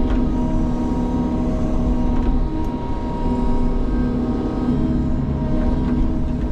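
Engine of a small Sany tracked forestry machine running steadily, with a steady whine over the low drone.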